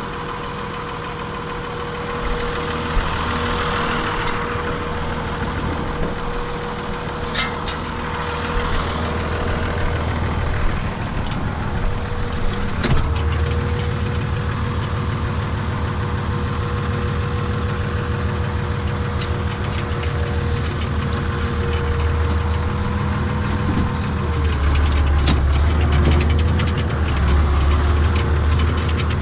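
Renault tractor's diesel engine idling steadily, with a thin steady whine alongside it. There is a single sharp knock about thirteen seconds in. The engine gets louder near the end.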